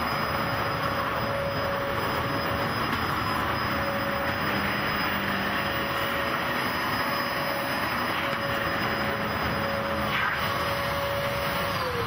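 Dyson vacuum cleaner motor running with a steady whine over a rushing airflow noise. Right at the end its pitch starts falling as the motor winds down.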